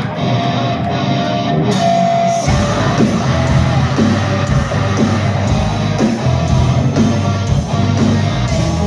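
A post-hardcore rock band playing live through a club PA, heard from within the crowd: a lighter guitar-led opening, then the full band crashes in with heavy drums and bass about two and a half seconds in.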